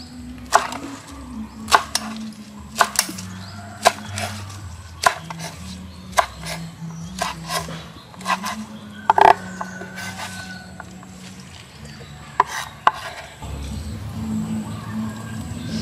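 Cleaver chopping spring onions on a wooden cutting board: sharp, uneven knocks about once a second, sometimes two close together. They stop about 13 s in, and soft background music plays underneath.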